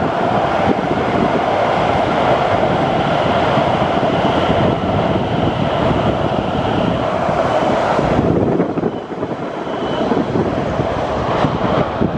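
Hokuriku Shinkansen train running past on the line, a loud steady rushing rumble that eases off about eight seconds in as it moves away.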